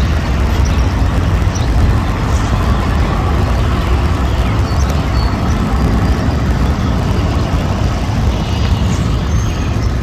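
Steady low rumbling noise, loud and even, with a few faint high chirps now and then.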